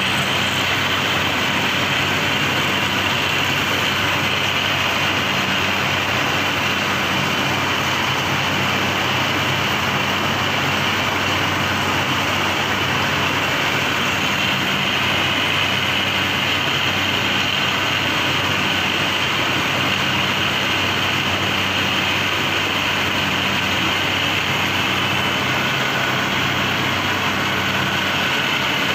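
Machinery running steadily: an even mechanical noise with a low hum under a continuous hiss, unchanging throughout.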